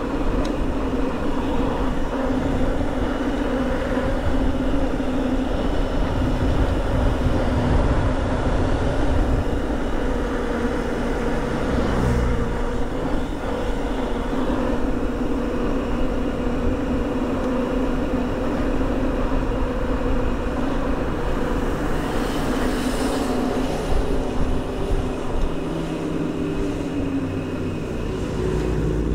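Mountain bike's knobby tyres humming on asphalt while rolling fast downhill, with wind buffeting the microphone. The hum drops lower near the end as the bike slows.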